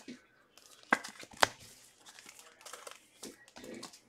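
Basketball trading-card pack wrappers crinkling and tearing as packs are opened and cards handled, with two sharp snaps about a second in and half a second later.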